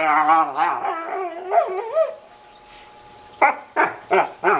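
German Shorthaired Pointer 'talking': a long, warbling, wavering whine-howl for about two seconds, then, after a short pause, four quick sharp barks near the end.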